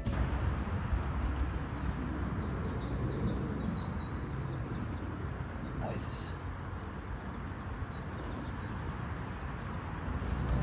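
Outdoor ambience: a steady background hiss with small birds chirping rapidly for the first six seconds or so.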